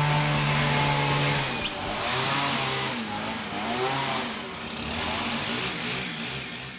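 A petrol leaf blower's small two-stroke engine running and revving up and down, with a rushing hiss of blown air.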